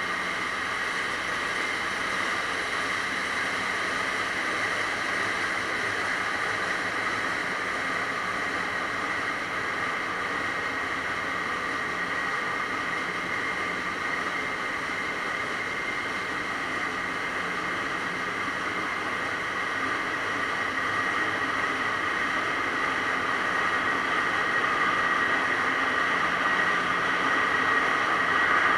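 Steady, dense machinery noise of a container ship's engine room, a constant drone with a steady high whine running through it, growing somewhat louder over the last several seconds.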